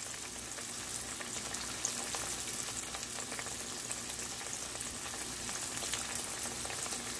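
Flour-and-semolina-coated fish fillets shallow-frying in hot oil in a pan: a steady sizzle with fine crackling as the first side cooks undisturbed before it is turned.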